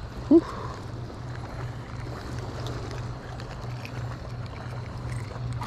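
Steady low rumble of wind and water at the shoreline. Over it come faint small clicks as fingers work a lure's hook out of a white perch's mouth, and one short rising squeak about a third of a second in.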